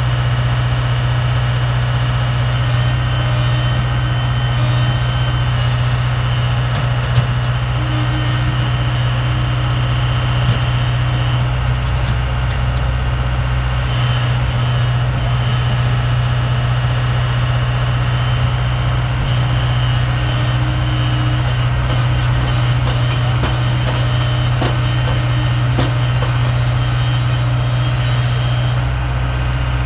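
Diesel engines of tracked excavators running steadily under load, a constant low drone, with a few light knocks in the second half.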